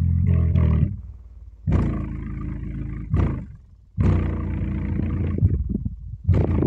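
Sundown Audio LCS car-audio subwoofer playing loud deep bass, its cone moving hard. The bass cuts out briefly about a second in and again after about three seconds, then comes back strongly.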